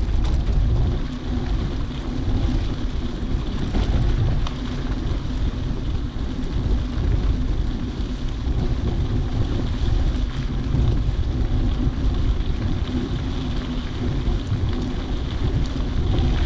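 Wind buffeting the microphone while a bike rolls along a dirt trail, giving a steady noise with a heavy low rumble.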